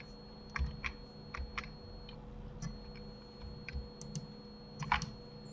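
Computer keyboard and mouse clicks: about ten light taps at irregular spacing, some in quick pairs, over a faint steady electrical hum.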